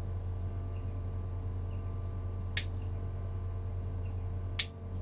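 Cutters snipping wires loose from a wiring bundle: two sharp snips, about halfway through and near the end, over a steady low electrical hum.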